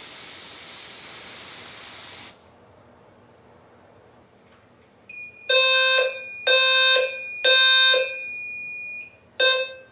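Canned test-smoke aerosol sprayed in a hiss lasting about two seconds into a smoke detector. About three seconds later the fire alarm sounds in a temporal-three pattern, three short blasts a second apart, a pause, then the next blast, with a steady high tone beneath: the detector has tripped in walk test.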